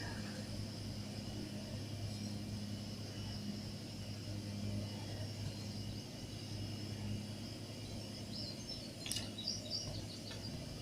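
Outdoor ambience: a steady low hum with a few short bird chirps about eight seconds in and a single click near the end.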